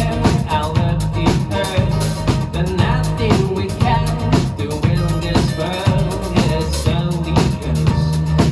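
Indie rock band playing live: drum kit with bass drum and snare keeping a steady beat under bass guitar and electric guitars.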